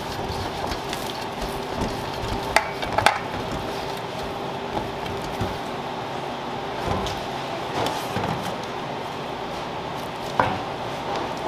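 Plastic spatula scraping and folding thick batter in a stainless steel mixing bowl, with a few sharp knocks of the spatula against the bowl, two about three seconds in and one near the end, over a steady background hum.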